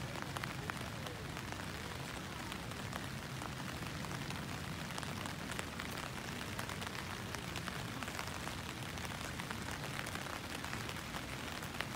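Steady hiss of light rain with many scattered small drop ticks.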